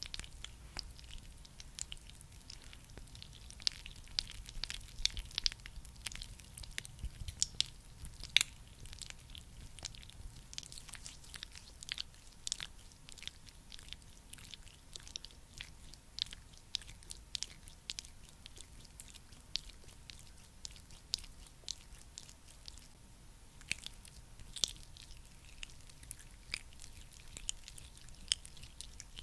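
A thick, sticky skin-care product being worked close to the microphone, making dense, irregular quick sticky clicks and crackles.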